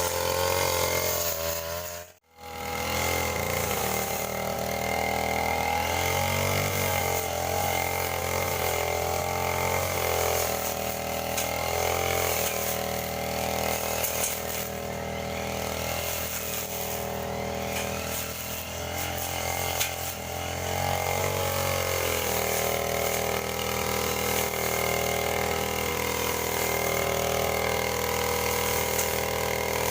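Small engine of a brush cutter running as it cuts grass, its speed rising and falling with the load. The sound cuts out briefly about two seconds in, then carries on.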